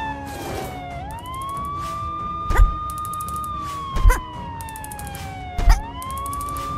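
Ambulance siren wailing: a tone that rises quickly, holds, then slides slowly down, starting over twice. Beneath it, background music with a deep thump about every second and a half.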